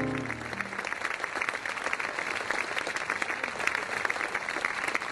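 Audience applauding, a dense, steady clatter of many hands, as a piano's last notes die away at the start.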